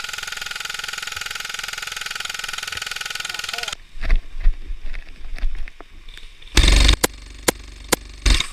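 Airsoft electric rifle (AEG) firing a long full-auto burst, a fast even buzz of shots that stops about four seconds in. After it come scattered knocks and sharp clicks, with one short loud blast a little before the end.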